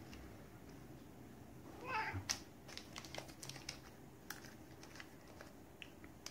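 A long-haired cat meows once, briefly, about two seconds in, then a run of quick, small clicks as it licks at a squeezable cat treat tube.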